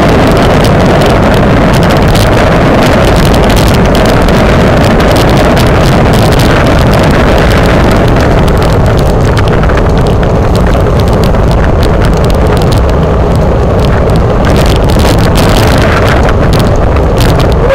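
Steady, loud wind rush on the microphone of a camera riding on a road bicycle at race speed in a group, with no let-up.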